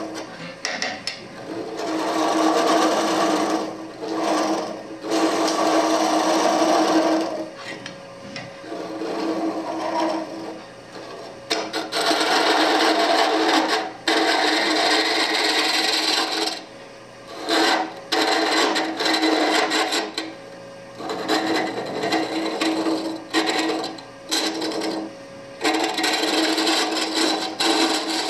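Woodturning gouge cutting into the end grain of a wood blank spinning on a Oneway lathe, hollowing it out in about seven rough, scraping passes of one to five seconds each, with the lathe's steady hum in the quieter gaps between cuts.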